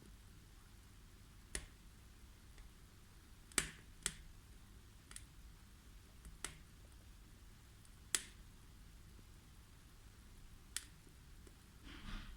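Wood fire burning in a wood-burning stove, crackling: sharp, irregular pops from the burning logs, about eight in twelve seconds, with a brief burst of crackle near the end.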